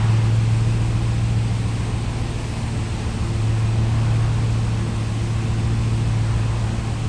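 2021 Ram TRX's supercharged 6.2-litre HEMI V8 idling steadily, a deep even hum with small swells in loudness.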